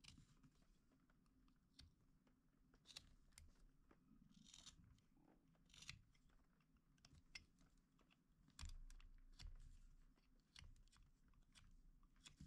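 Faint, crisp crunching of a whittling knife paring small cuts into a wooden carving, a series of short strokes at an uneven pace, with a soft low bump about two-thirds of the way through.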